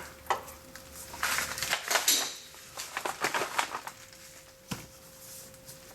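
Irregular metal clinks, scrapes and rattles of steel parking brake cable hardware being handled and worked loose by hand, in scattered clusters.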